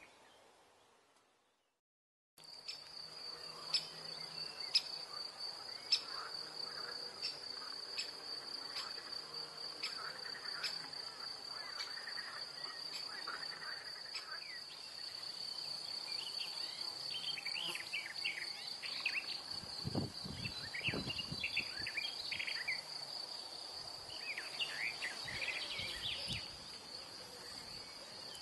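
A cricket singing a steady, high, unbroken trill, starting after a moment of silence. Small birds chirp and twitter faintly in the background.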